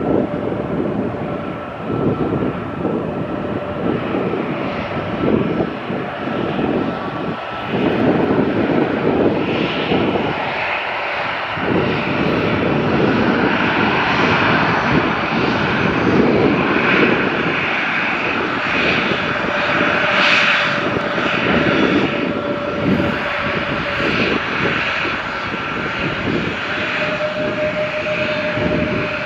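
Airliner engines running, a loud, steady, dense rumble with a constant whine. The whine's pitch steps up slightly near the end.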